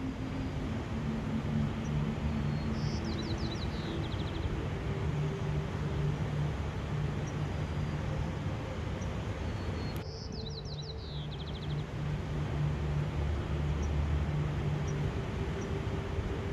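A steady rushing outdoor noise with a faint low hum under it. A songbird sings a short run of quick high notes that falls in pitch, about three seconds in and again just after ten seconds. A few faint chips come in between.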